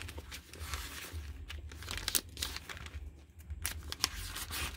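Pages of a thick paper planner being flipped through by hand: a quick run of crisp papery flicks and rustles.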